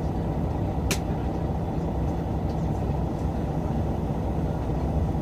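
City bus running, a steady low engine and road rumble heard from inside the cabin, with one sharp click about a second in.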